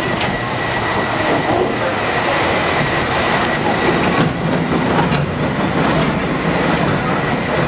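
A streetcar rolling past close by on street rails, its wheels rumbling and clattering steadily, with a thin high whine running under it.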